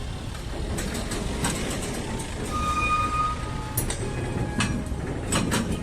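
A heavy machine running with a low steady rumble, scattered metallic clanks and knocks, and a brief high squeal about three seconds in.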